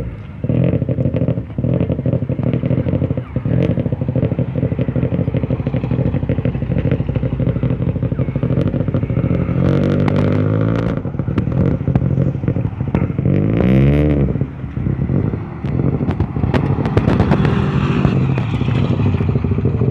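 Subaru Impreza GC8 rally car's flat-four engine revving hard on a loose dirt track, its note sweeping up and down through throttle lifts and gear changes and loudest about two-thirds of the way through. Loose gravel clatters under the car as it slides through the corners.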